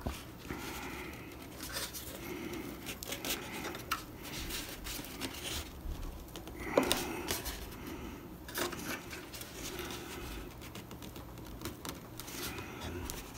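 Faint handling noises from hands working the foam tail of a model airplane: foam rubbing and creaking with scattered light clicks, one sharper click about seven seconds in.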